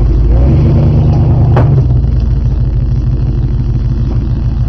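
Chevrolet pickup's engine running with a steady low rumble, with one sharp click about a second and a half in.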